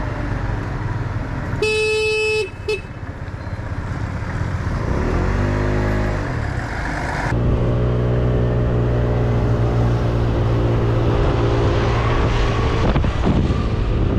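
Moped engine running while riding in traffic. About two seconds in a horn sounds for about a second, followed by a short second toot. A few seconds later the engine note dips and climbs again as the revs change, then holds steady at cruising speed.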